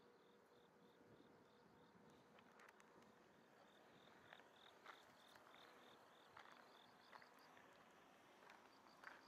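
Faint insect chirping: a high, even pulse repeating about three or four times a second. From a few seconds in, footsteps on gravel click irregularly over it.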